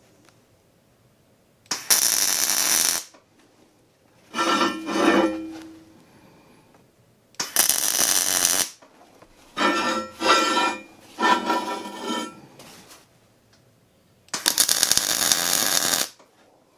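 Miller Multimatic 200 MIG welder laying tack welds: the arc crackles and sizzles in about six short bursts, each about a second long, with pauses between as the parts are tacked in place before final welding.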